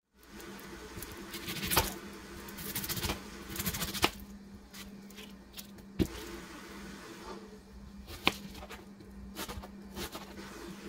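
Handling noise from preparing food on a thin plastic cutting mat: an onion and a kitchen knife are set down and moved about, giving scattered knocks and taps, with about four sharp ones roughly two seconds apart. A steady low hum runs underneath.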